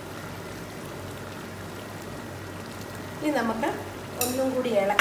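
Chicken thoran simmering in an open pot, a steady soft bubbling as its liquid boils off. A voice comes in about three seconds in, with a brief clink about a second later.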